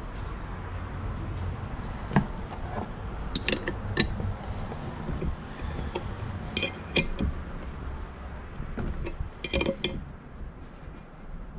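Sharp, ringing metal clinks of a steel combination spanner against the centre bolt and blade of a Makita cordless lawn mower as the blade is fitted back and the bolt tightened. The clinks come singly and in small bunches at irregular intervals, over a steady low rumble.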